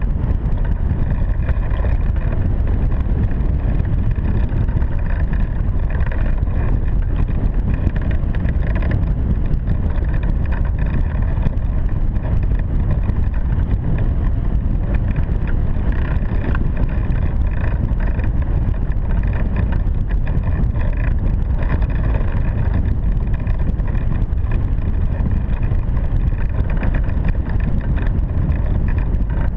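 Wind rushing over the microphone of a camera mounted on a hang glider in flight: a steady, deep rush of airflow that holds without a break.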